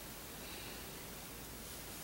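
Faint, steady hiss of room tone and recording noise, with no distinct sound in it.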